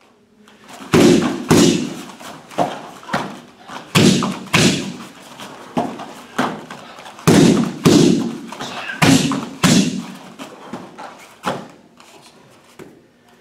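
Double kicks landing on Thai pads: four pairs of loud, sharp smacks about half a second apart, with softer thuds between the pairs as the kicker sprawls onto the mat.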